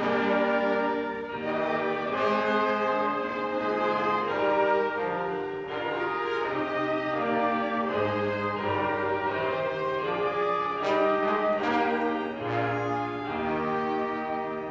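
Small church orchestra of strings and brass playing a piece with held, overlapping notes, the sound dying away at the very end.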